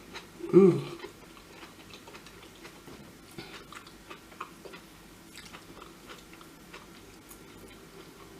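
A person chewing food with small mouth clicks and smacks. About half a second in comes one brief, louder voiced sound from the eater.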